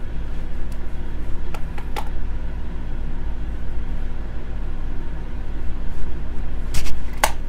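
Steady low rumble and hum of background room noise, with a few soft clicks, one near the start and a pair near the end.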